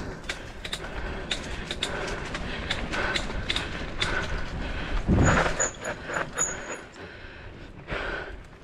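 Bicycle rattling over a rough dirt singletrack: a steady jolting clatter full of sharp clicks and knocks from the frame and chain, with a heavier bump and a few short high squeaks a little past halfway.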